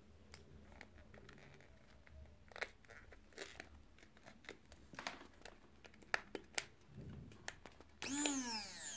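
Small plastic hand-blender parts being handled while a switch button and its spring are fitted, with scattered light clicks and knocks. Near the end comes a louder pitched sound about a second long whose tones fall in pitch.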